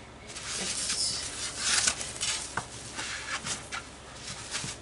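Hands rubbing hair cream through a wig's hair on a mannequin head: soft rustling swishes in irregular strokes, several a second.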